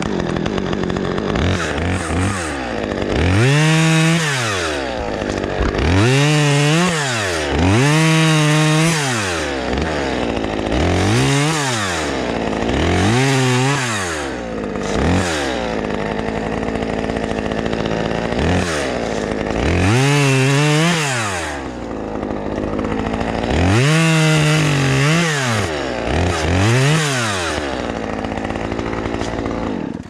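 Husqvarna T345 top-handle two-stroke chainsaw running loud, revved up and let back down to idle about ten times as it cuts branches.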